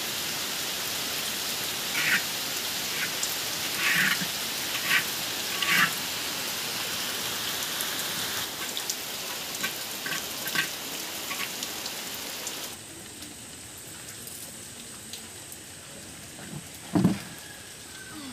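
Steady rain hiss with a few short clicks and knocks of utensils being handled. About two-thirds through the rain hiss drops off sharply, and near the end there is one loud thump.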